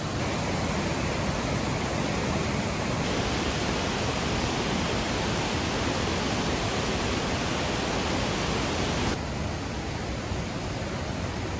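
Steady rush of a waterfall, an even hiss of falling water. It turns brighter and louder about three seconds in and drops back abruptly to a duller rush about nine seconds in.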